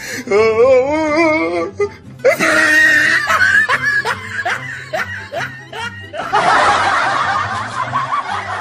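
Background music with a steady repeating bass line, overlaid with comedy laughter sound effects: a wavering warble, then a run of short laughs, then a dense noisy wash from about six seconds in.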